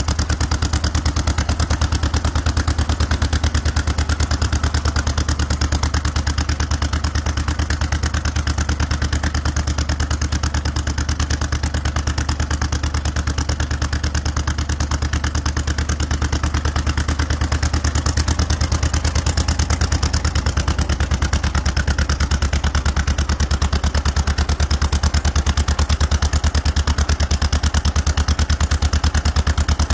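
1954 John Deere 40's two-cylinder gasoline engine idling steadily with an even, rapid firing beat, warming up after a cold start.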